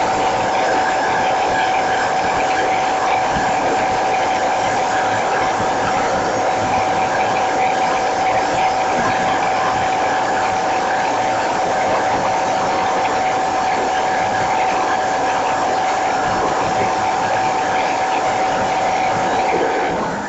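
Leaf blower running steadily, blowing onto a blower-motor wind generator: an even rush of air with a constant high whine.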